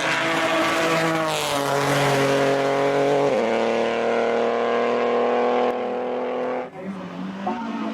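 Race car engine at high revs accelerating hard, its pitch dropping with an upshift about a second and a half in and again about three and a half seconds in, climbing between shifts, then falling away near the end.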